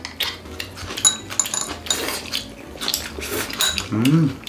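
Tableware clicking and clinking as people eat with chopsticks from plates and bowls, with a couple of ringing metallic clinks about a second in. A brief hum from a diner comes near the end.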